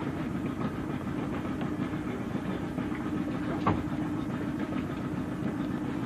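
Boat motor running steadily at low speed, with one short knock a little past halfway.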